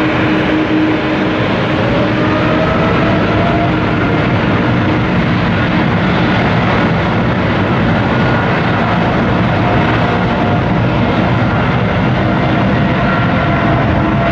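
Boeing 777-300ER's GE90-115B turbofan jet engines running with a loud, steady roar, with a few faint tones held within it, one of them drifting slightly upward in pitch.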